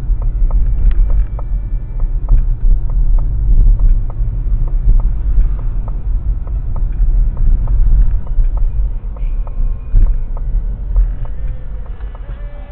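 A road vehicle on the move: a steady low rumble of engine and road and wind noise, with faint regular ticks about twice a second.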